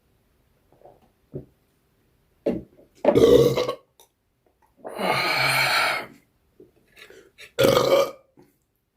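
A person belching loudly three times, the middle belch the longest at about a second, with a couple of small throaty sounds before them.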